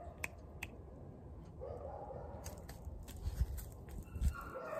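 Standard poodle chewing a treat: faint scattered crunching clicks, with a couple of soft low thumps in the second half.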